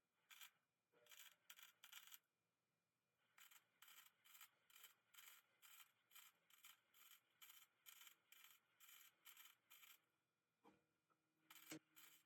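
Faint, rhythmic hand-worked rubbing strokes, about two to three a second, pausing briefly twice, with a light knock near the end.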